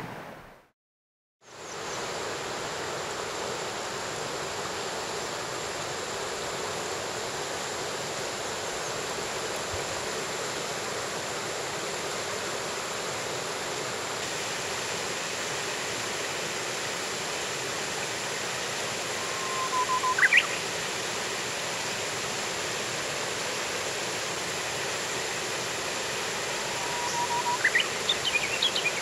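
Shallow rocky river rushing steadily over stones, starting after a brief silence about a second in. Twice, about two-thirds of the way in and again near the end, a Japanese bush warbler sings: a held low whistle that jumps into a quick higher phrase.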